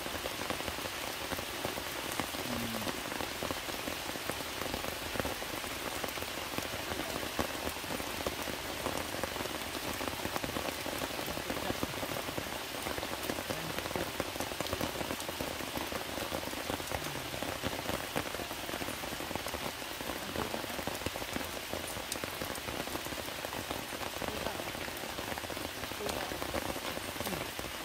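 Heavy rain falling steadily, a continuous hiss dotted with countless small drop hits.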